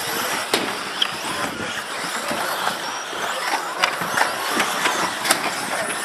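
Radio-controlled model cars racing on an artificial-grass track: a steady noisy mix of motors and tyres, broken by sharp clicks and knocks several times.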